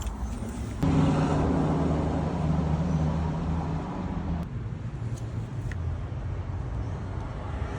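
2018 Toyota Hilux engine cranking on its starter motor without firing. The cranking starts suddenly about a second in and stops about four and a half seconds in, leaving a fainter steady noise. The truck won't start because its fuel pump isn't running, which the mechanic traces to a bad ground in the pump's wiring.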